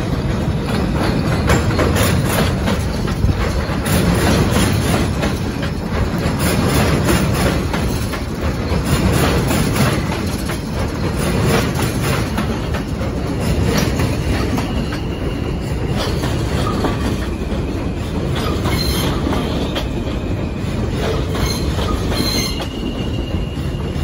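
R160A-2 subway train running in over elevated steel track: a loud, steady rumble with wheels clicking over the rail joints as the cars pass. A steady high-pitched wheel squeal joins about fifteen seconds in and again near the end as the train slows into the station.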